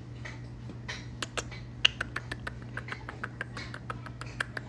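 Quick, irregular series of soft kissing smacks and clicks, a few each second, as a man and a baby spider monkey kiss face to face.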